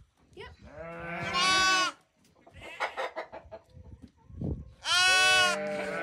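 Lambs bleating: two loud, high-pitched bleats, each under a second long, the first about a second in and the second near the end.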